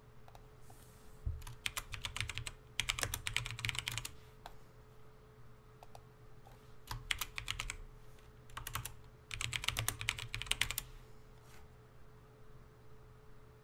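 Typing on a computer keyboard: several bursts of rapid keystrokes, each a second or so long, with short pauses between.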